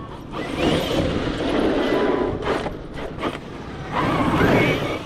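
Brushless electric motor of a large 8S RC monster truck accelerating hard twice, a rising whine over loud tire noise, with a short lull between the runs.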